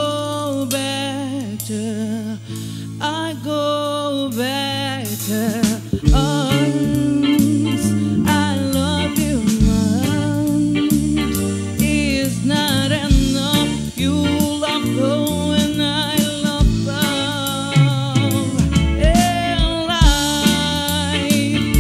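A woman singing a song with a live band: electric bass, drum kit and electric guitar. The accompaniment grows fuller and more rhythmic about six seconds in.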